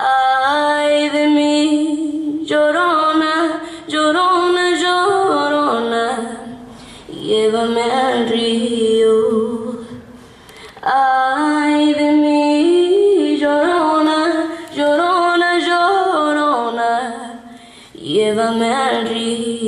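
A woman's voice singing a slow melody without clear words, in several long phrases with short breaths between them.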